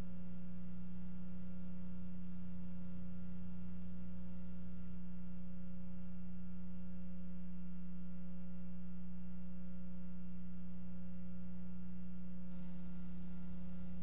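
A steady low-pitched hum with faint overtones, unchanging in pitch and level throughout.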